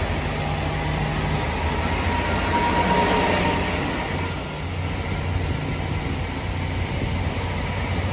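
Train passing close alongside at a crossing loop, its wheels and cars rushing by until it clears about four seconds in. A diesel railcar engine hums steadily underneath.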